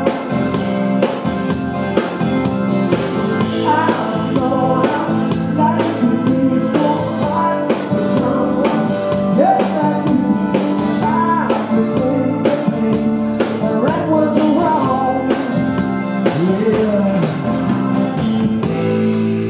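Blues-rock band playing live: singing over electric guitar, drums and bass.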